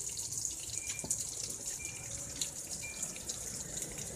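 Steady hiss of running water, with scattered small clicks and three faint short high beeps about a second apart.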